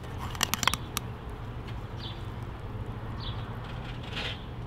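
Light clicks and scrapes of a metal pie server against a ceramic pie dish as a slice of meat pie is lifted out, mostly in the first second, over a steady low hum.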